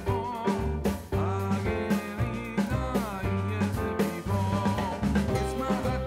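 Background music: an instrumental-style track with a steady drum beat, bass notes and a wavering lead melody.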